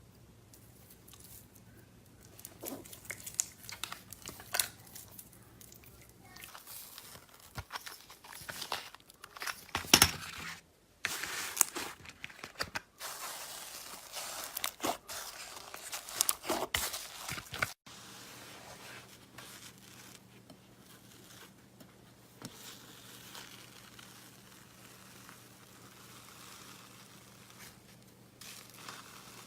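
Slime being stretched, squeezed and pulled apart by hand, in irregular bursts that are loudest in the middle and give way to softer handling near the end.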